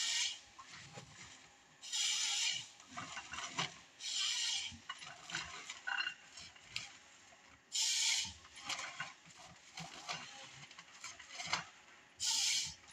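John Deere 1070G harvester head cross-cutting a felled stem into logs. Its saw makes five short, loud rasping bursts, each about half a second long, with scraping and crackling in between as the stem is fed through the head.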